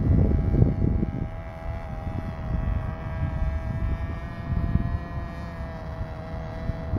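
Cox .049 two-stroke glow engine and 7x3 propeller of an RC model plane in flight, a steady high-pitched buzz whose pitch wavers slightly as the plane moves across the sky. Gusty wind buffets the microphone in the first second or so.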